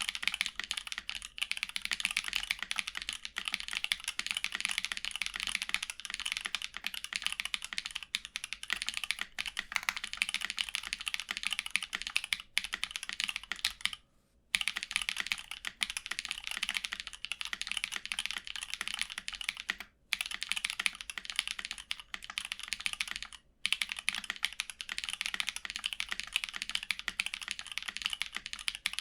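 Fast, continuous typing on a Think6.5 v2 custom mechanical keyboard with Glorious Panda tactile switches, lubed with Tribosys 3203 and filmed, under GMK keycaps. The keys clatter in a dense stream, with brief pauses about halfway through and twice more later.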